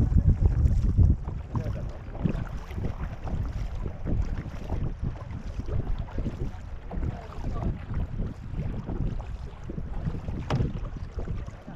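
Racing canoe being paddled by its crew: paddle blades dipping and pulling through the water in repeated strokes, with wind buffeting the microphone, heaviest in the first second. A single sharp knock comes near the end.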